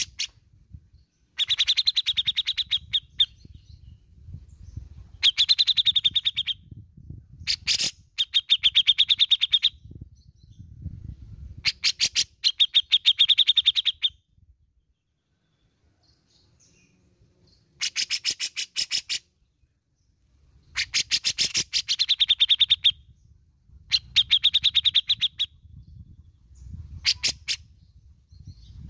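Grey-cheeked bulbul (cucak jenggot) singing in bouts of very rapid, rattling chip notes, each bout up to about two seconds long, about nine bouts with short pauses between.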